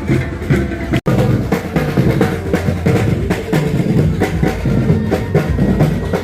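Music with drums keeping a steady beat, cutting out for an instant about a second in.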